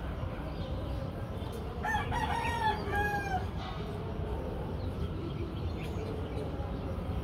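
A rooster crowing once, about two seconds in, over steady low background noise.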